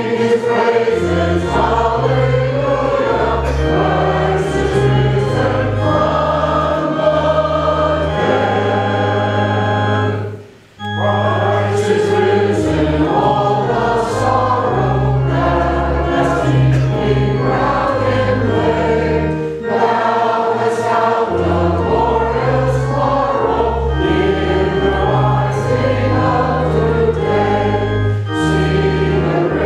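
A group of voices singing a hymn together over sustained low accompanying notes that change with each chord, with a short break between phrases about ten seconds in.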